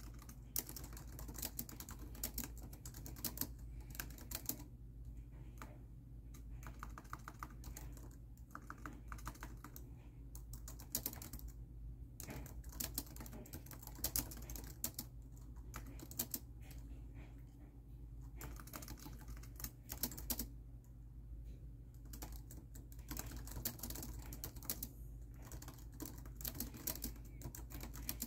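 Typing on a laptop keyboard: quick runs of key clicks broken by short pauses, over a low steady hum.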